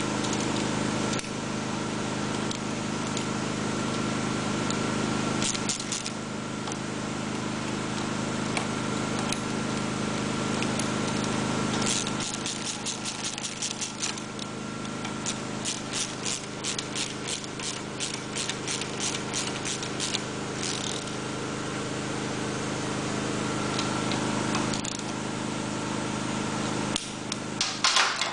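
Hand socket ratchet clicking in quick runs of strokes for several seconds in the middle, tightening the starter mount bolts, over a steady background hum. Near the end there is a short metal clatter as tools are set down on the steel bench.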